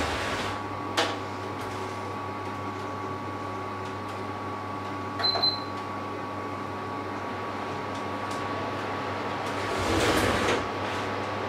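Steady mechanical hum of a kitchen appliance, with a sharp clink about a second in, a short ringing clink about five seconds in, and a brief rush of noise near the end as dishes are handled at the sink.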